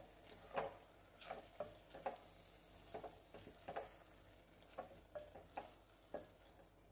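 Wooden spatula stirring and scraping thick mushroom masala in an aluminium pressure cooker, faint irregular strokes about one or two a second, over a light sizzle of the masala frying.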